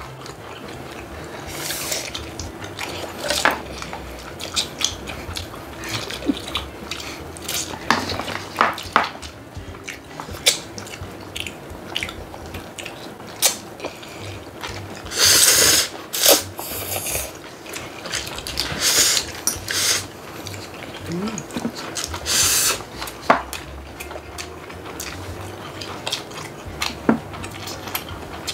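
People slurping instant noodles and eating, with chopsticks and utensils clicking against bowls and plastic food containers. A few longer, louder slurps come about halfway through.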